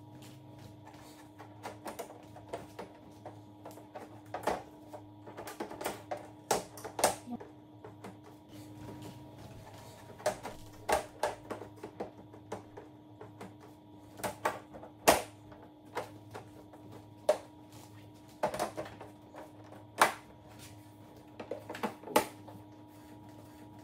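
Plastic outer bezel of a Samsung UN40EH5000 LED TV being pressed on, its clips snapping into place: a run of sharp, irregular clicks and snaps in small clusters over a faint steady hum.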